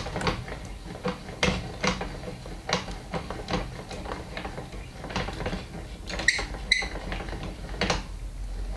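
Irregular metal clicks and knocks from parts of a homemade lathe being handled and adjusted at the tailstock while the motor is stopped, with two short high squeaks just after six seconds.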